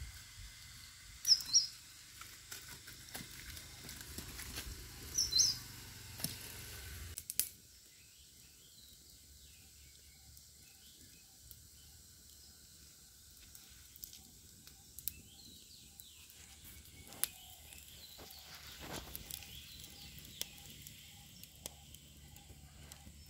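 Outdoor ambience around a wood fire burning under a cooking pot, with scattered faint crackles from the burning sticks. A bird gives two short sharp chirps in the first few seconds. Later, a faint regular chirping repeats in the background.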